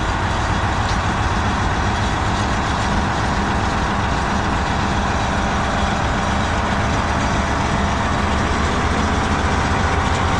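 Rotochopper B66 wood grinder's diesel engine running steadily and driving its rotor drum, a test run to check for internal damage after a large piece of metal went through the machine.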